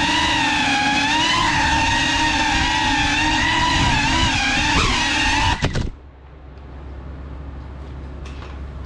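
GEPRC Cinelog35 cinewhoop's brushless motors and ducted propellers whining, the pitch wavering up and down with the throttle. About five and a half seconds in, a short clatter as the drone crashes, and the motor whine cuts off suddenly, leaving a faint low hum.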